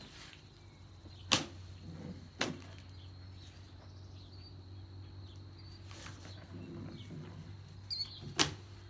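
Cardboard shipping box being handled and opened by hand: rustling cardboard with a few sharp knocks, about a second and a half in, again a second later, and near the end, over a steady low hum.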